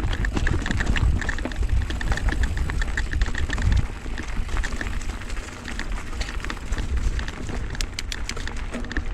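Wind buffeting the microphone with a heavy low rumble, over irregular crunching and crackling from footsteps on a loose, rocky dirt trail.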